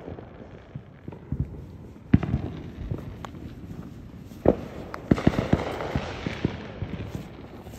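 Neighbourhood fireworks going off: scattered sharp bangs, the loudest about four and a half seconds in, then a quicker run of bangs with crackling from about five seconds in.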